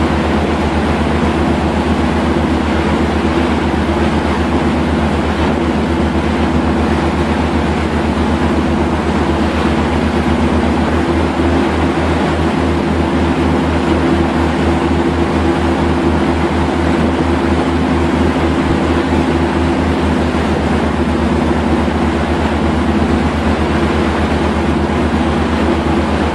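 A boat's engine running steadily with a fast low throb, under a constant rushing noise of water and wind.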